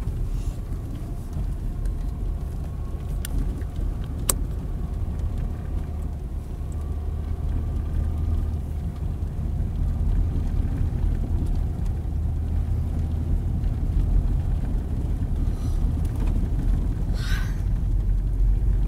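Steady low rumble of a car's engine and tyres heard from inside the cabin while driving, with a faint drone above it. A single sharp click about four seconds in and a brief rustle near the end.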